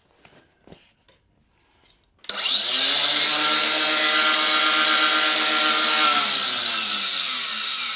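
Cordless angle grinder started about two seconds in and cutting into the recliner's back, running at a steady high speed with a grinding hiss over its motor whine. Its pitch sags slightly near the end, and it then winds down once released.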